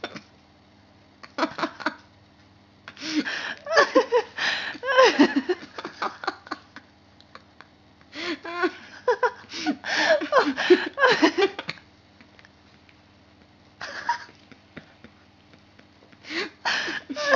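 A person talking and laughing in short bursts, with quiet gaps between.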